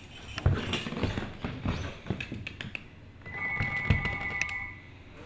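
Knocks and scrapes of a small artificial Christmas wreath being dragged and dropped on a hardwood floor by a Pomeranian puppy, with the puppy's paws tapping on the wood. A steady ringing tone sounds for about a second and a half, a little past three seconds in.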